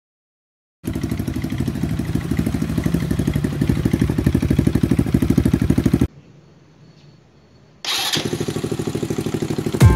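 Kymco motorcycle engine running through a homemade muffler made from a can, with a steady, evenly pulsing exhaust note. It cuts off about six seconds in, and after a short quiet gap it runs again in a second take.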